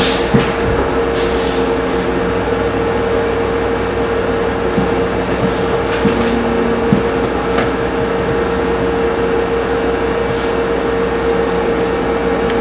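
Open telephone line with a steady hiss and a constant mid-pitched hum, carrying a few faint clicks and knocks from the far end while the employee is away from the phone.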